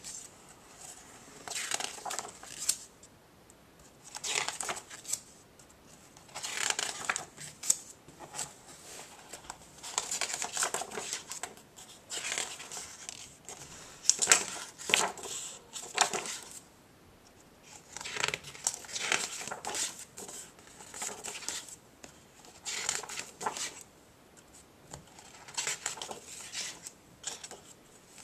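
Paper pages of a picture book being turned one after another, each turn a short rustle of paper, about ten turns spaced a couple of seconds apart.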